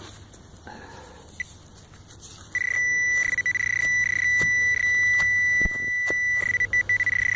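Metal detector giving a steady high-pitched target tone that starts about two and a half seconds in and holds with a few brief dropouts, signalling metal in the dig hole. A few faint clicks come before it.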